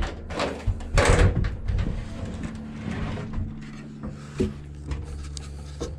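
A person climbing a fibreglass ladder with metal rungs: knocks and creaks of feet and hands on the rungs, with a loud knock at the start and a rustling burst about a second in. A steady low hum runs underneath.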